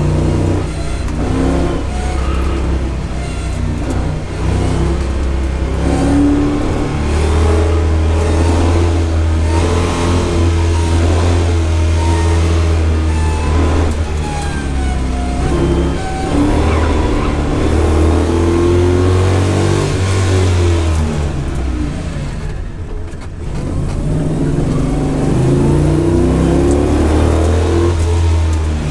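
Classic 1960s Ford Mustang's engine, heard from inside the cabin, revving up and down again and again as the car is driven hard, with a short quieter dip about two-thirds of the way through.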